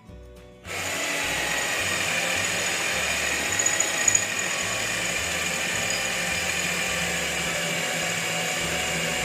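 Ryu RCD12V 12-volt cordless drill running steadily under load, drilling a test hole; it starts about a second in and runs without a break.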